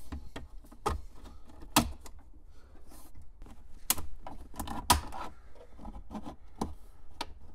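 Plastic retaining clips of a Ford F-150's upper dash trim panel snapping and clicking as the panel is pried loose, in a string of irregular sharp snaps, a few of them louder.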